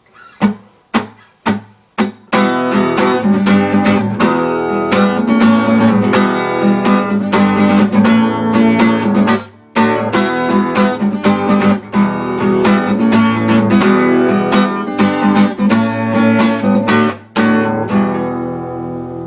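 Acoustic guitar strummed as a song's instrumental intro: four single chord strokes about half a second apart, then steady strumming with a brief break near the middle.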